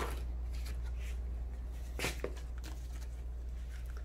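A few faint rustles and soft clicks of a packaged product being handled, over a steady low hum.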